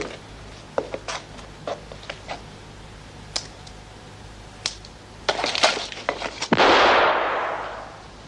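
A series of small sharp clicks and knocks, then one loud gunshot about six and a half seconds in, ringing out in a reverberant tail that fades over a second and a half. It is a shot fired at a projected target on an indoor police shooting range.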